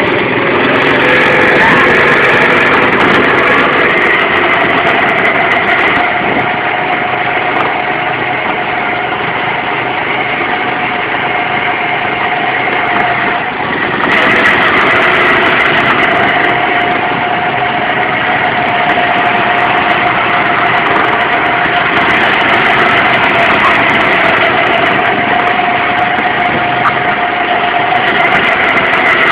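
Small go-kart engine running at speed with a steady, held pitch. It picks up over the first couple of seconds, eases off for a moment about halfway through, then pulls again.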